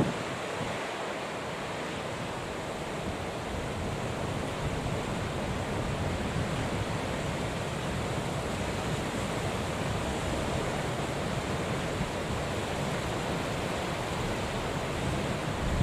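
Steady rush of wind and breaking sea waves, even and unchanging, with wind blowing across the microphone.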